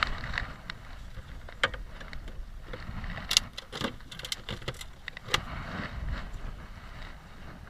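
A scattering of small sharp clicks and metallic clinks, bunched mostly in the middle, over a low rumble of wind on the microphone.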